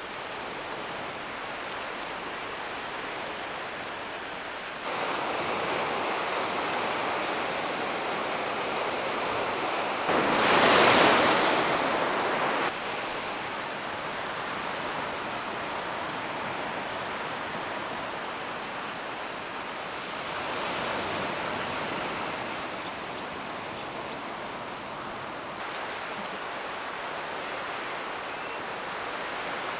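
Fish sizzling in wire grill baskets over charcoal: a steady hiss that swells loudly for about two seconds a third of the way in.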